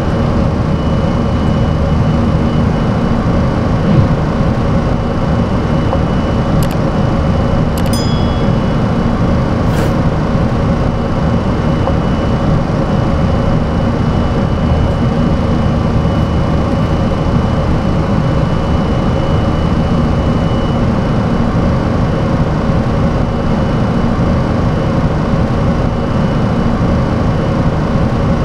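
Steady roar of a Boeing 737-400's CFM56-3 engines and rushing air, heard on the flight deck during the climb after takeoff, under a faint steady high whine. A few faint clicks come about a quarter of the way in.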